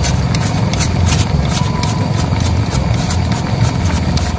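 A kitchen knife shaving a block of palm sugar in quick scraping strokes, about three a second, over a steady low rumble.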